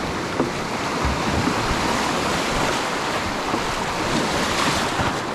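Lake waves washing steadily onto the shore, with wind buffeting the microphone.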